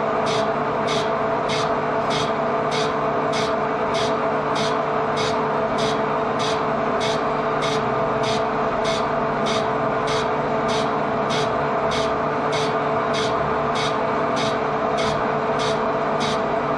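Metal lathe taking a heavy carbide cut on a gray cast iron piston casting: a steady machine hum with an even scratchy beat about two and a half times a second. It is an interrupted cut through the casting's hard, porous, sandy crust.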